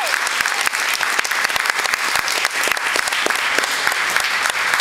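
An audience applauding: many hands clapping in a steady, dense patter after a successful board break.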